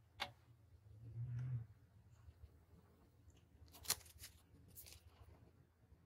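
Faint handling noises on a drawing desk: a few sharp little clicks and a short crinkling rustle as a crumpled paper tissue is set down on the drawing paper. A brief low hum comes about a second in.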